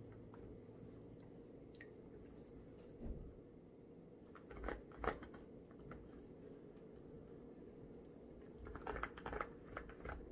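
Faint eating sounds: chewing and a few brief clicks and scrapes of a utensil, in three small clusters, over a low steady room hum.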